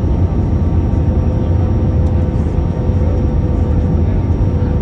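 Airbus A320 cabin noise on approach with flaps extended: a steady deep rumble of engines and rushing air, with a steady hum running through it.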